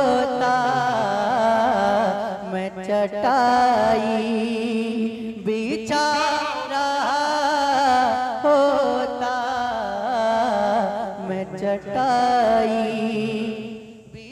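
Male naat reciter singing a long drawn-out melodic passage with no clear words, the pitch bending and gliding from phrase to phrase, over a steady low held tone.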